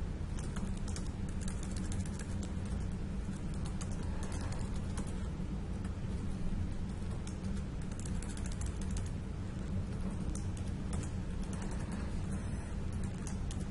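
Computer keyboard typing: irregular runs of keystrokes, over a steady low hum.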